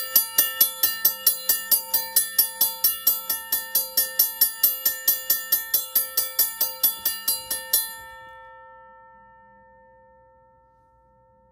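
Safetran electromechanical railroad crossing bell ringing at about four strokes a second, its electromagnet-driven striker hitting the gong, set roughly a quarter of the way up its speed. The striking stops about eight seconds in and the gong rings on, fading away.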